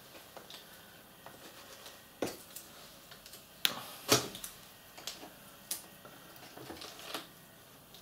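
Scattered sharp clicks and light knocks from hands handling an opened iMac's LCD panel and aluminium frame, a few seconds apart.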